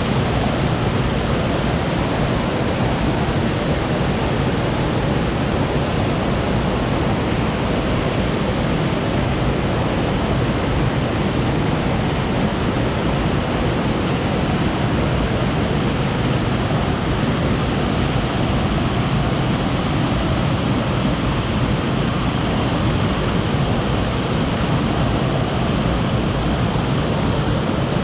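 Loud, steady rushing of a waterfall on a mountain stream in full flow after rain.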